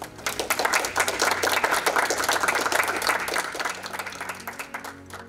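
Small audience applauding, a dense patter of hand claps that tapers off near the end.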